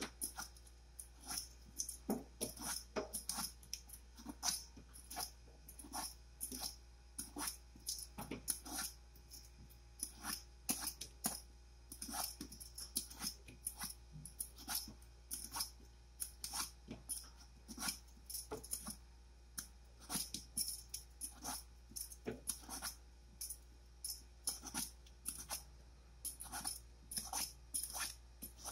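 Vegetable peeler scraping the skin off a luffa (sponge gourd) in quick strokes, several short scrapes a second, unevenly spaced.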